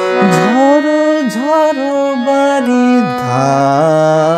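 A man's voice singing a wordless melodic line with slides and dips in pitch, over a harmonium's steady held notes that change in steps.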